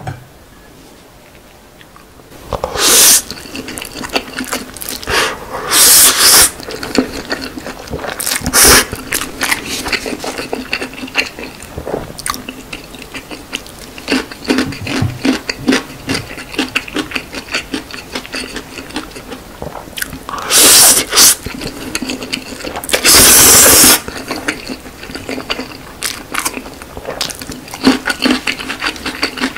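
Close-miked eating sounds: a man chewing and slurping black-bean jjajang noodles, with wet mouth clicks throughout and several loud slurps.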